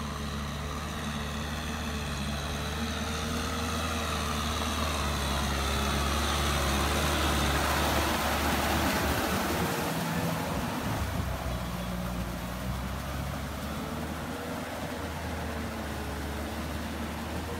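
Kubota M6040SU tractor's diesel engine running steadily as it pulls a rotary tiller through a flooded rice paddy, with the churn of mud and water. It grows louder as it comes close about halfway through, then eases off.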